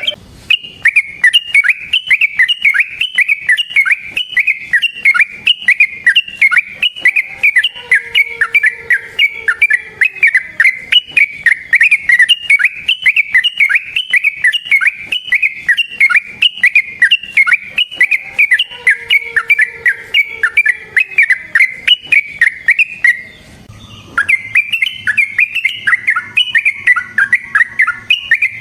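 Yellow-vented bulbul (trucukan) singing a long, fast, unbroken run of repeated notes, several a second, with a pause of about a second near the end before the run starts again. This is the non-stop 'gacor ropel' song used as a lure to make other bulbuls answer.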